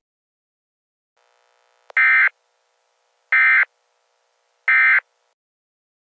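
Three short, identical bursts of Emergency Alert System end-of-message data tones, a harsh electronic buzz about a third of a second long, repeated about a second and a half apart. They mark the end of the alert message. A faint click comes just before the first burst.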